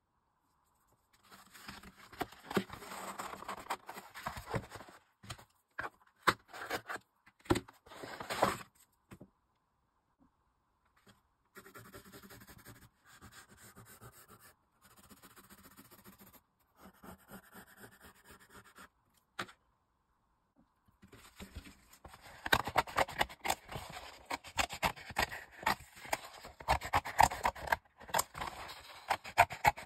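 Pencil lead scratching in short strokes across a cardboard envelope, quiet and even. This is followed by scissors cutting through the stiff cardboard in a rapid run of crisp snips and scrapes, the loudest part. Before the drawing there is a stretch of louder, irregular scraping and rustling of the card.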